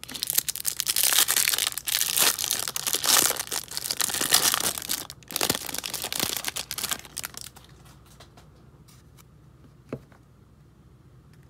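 Clear plastic wrapping being torn and crinkled off a stack of trading cards, a dense crackle that lasts about seven and a half seconds and then stops, followed by a single light tap near the end.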